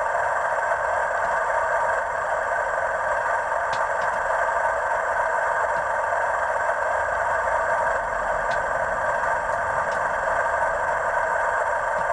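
Hornby TTS sound decoder in a model Class 97 (Class 37) locomotive playing its diesel engine idling sound through the model's small speaker. It runs steadily, with no audible notch change after notch-up was selected.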